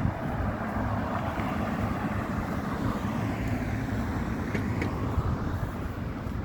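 Road traffic noise: a steady rush of passing cars.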